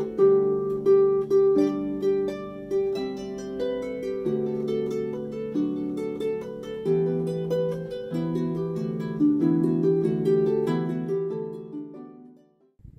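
Background music on a plucked string instrument, harp-like, playing a slow run of notes that fades out near the end.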